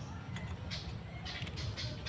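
Brief hissing sizzles as a soldering iron's tip melts solder and flux on a circuit board's joints, over a steady low rumble.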